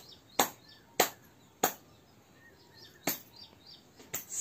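Four sharp clicks, spaced irregularly, with faint short chirps between the last two.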